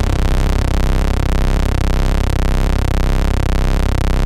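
Loud, distorted electronic synth music with a heavy bass, dense across the whole range and pulsing in a fast chequered pattern.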